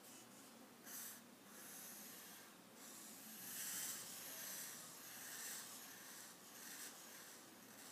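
Felt-tip marker drawing on paper: faint, scratchy strokes that come and go as lines and a spiral are drawn, loudest about halfway through.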